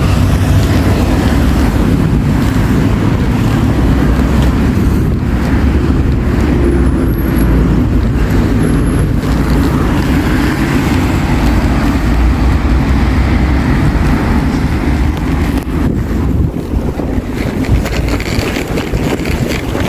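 City road traffic: cars and trucks passing in a steady, dense low rumble that never lets up.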